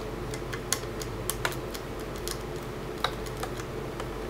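Irregular small clicks and ticks of a screwdriver backing the short screws out of a 2.5-inch hard drive's metal caddy, with a few sharper clicks, over a faint steady hum.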